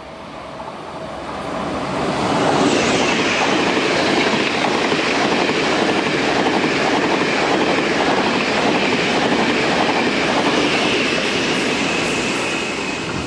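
Taiwan Railway train passing at speed. It builds over the first couple of seconds into a loud, steady rush, with the wheels clattering rhythmically over the rail joints.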